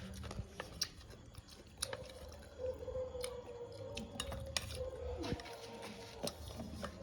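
Close-up mouth sounds of someone chewing papaya with hot peppers: wet smacks and sharp clicks scattered irregularly. A faint steady tone joins about two seconds in.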